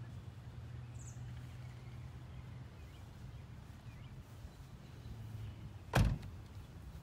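A car door slammed shut about six seconds in, one sharp thud, over a low steady hum.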